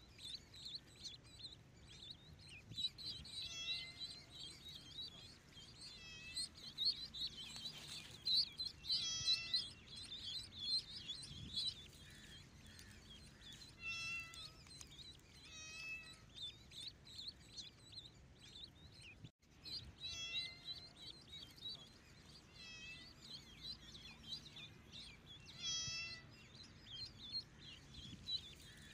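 Kittens meowing, about seven short high-pitched calls spread out, over near-continuous high chirping from ducklings peeping.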